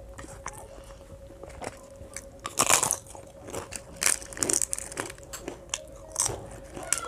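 Crisp fried papad (poppadom) crunching as it is broken up and eaten with khichuri, with a few loud crunches about two and a half, four and six seconds in and smaller crackles between. A faint steady hum runs underneath.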